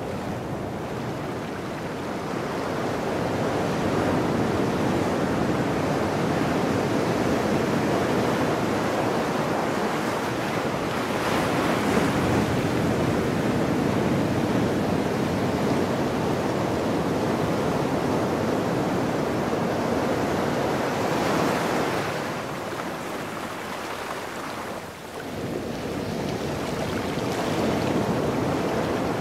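Ocean surf washing up the beach and swirling around rocks at the water's edge. It is a continuous rush of foaming water that swells and eases as each wave runs in and drains back, dipping briefly near the end before building again.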